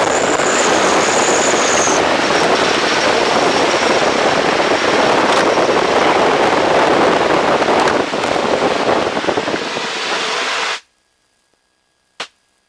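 Wind blast at about 150 mph rushing through the open canopy of a Long-EZ in flight, a loud, steady rush of noise. It cuts off suddenly near the end, followed by two short clicks.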